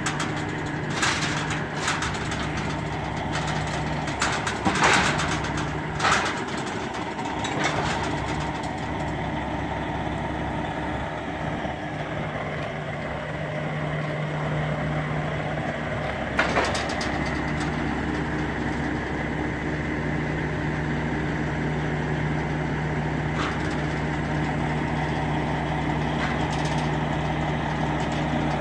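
Diesel truck engine idling steadily with a constant hum, broken by a few sharp clanks, the loudest about five seconds and sixteen seconds in.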